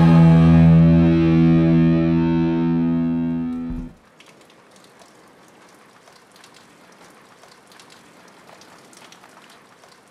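Closing chord of a live cello piece, held steady, then cut off abruptly about four seconds in. After that only a faint hiss with scattered light ticks remains.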